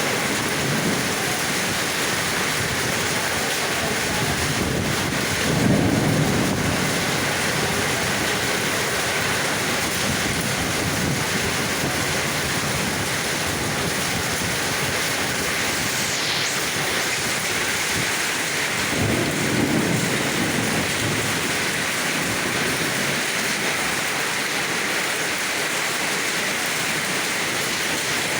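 Heavy rain pouring steadily, with low rolls of thunder about six seconds in and again around twenty seconds in.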